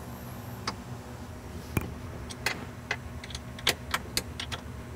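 Scattered light metallic clicks and taps, irregularly spaced, from bolts and steel brackets being fitted by hand where the drawer module bolts to its mounting feet, over a low steady hum.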